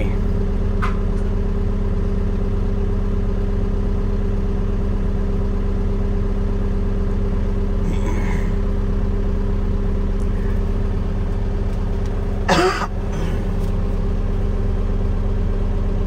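Engine of a machine idling steadily. About twelve and a half seconds in there is one brief sharp sound.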